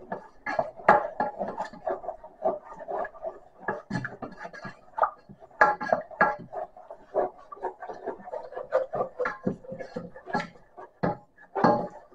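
A utensil stirring and scraping around a metal saucepan, with irregular clinks and knocks against the pan, as beef stock is worked into flour to a thick paste.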